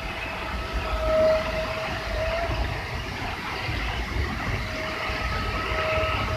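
A flood-swollen waterfall pouring down in a heavy, muddy torrent: a continuous deep rush of falling water. A thin steady tone fades in and out over it, about a second in and again near the end.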